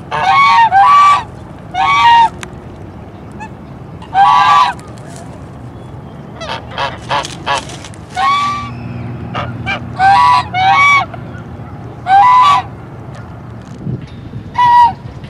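Domestic geese honking: loud single honks every second or two, with a quick run of short honks about halfway through.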